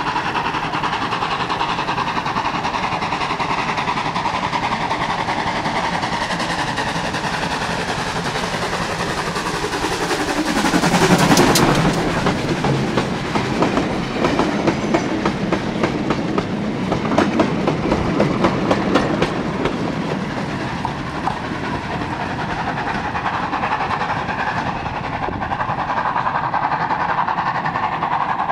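Heritage steam train hauling a rake of old goods wagons passing close by. It swells to its loudest about ten seconds in as the locomotive goes past, followed by several seconds of regular clickety-clack as the wagon wheels cross the rail joints, then fades back to a steady running noise.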